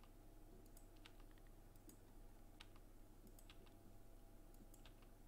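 Faint, irregular clicks of a computer keyboard and mouse buttons over a low steady hum.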